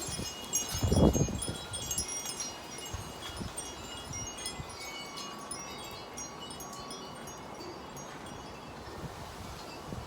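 Chimes ringing in gusty wind, with many short high tinkling tones that are busiest in the first few seconds and thin out later. A gust buffets the microphone about a second in.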